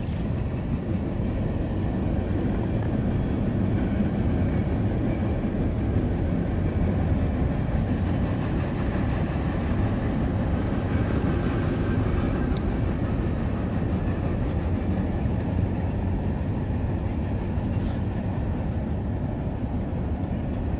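Steady, loud rumbling noise, heaviest in the low end, that sets in at the start: a fishing boat running under way.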